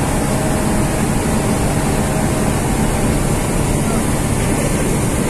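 Steady low rumble of a car ferry's engines on its open deck, mixed with wind and water noise.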